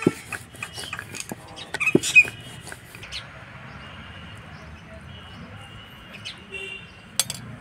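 Handling sounds of momo-making on a wooden board: a wooden rolling pin clicking and knocking against the board, with the loudest knocks about two seconds in, then a metal spoon scooping filling and a sharp click near the end. Faint high chirps sound in the background.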